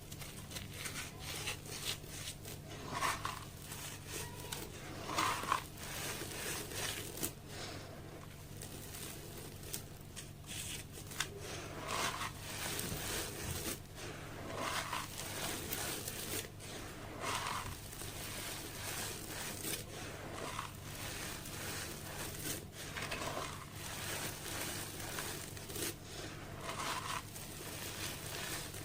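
Sand-cement slabs crumbling in water: a run of crisp crackles and crunches as pieces break apart, with a soft swell every two to three seconds and a low steady hum underneath.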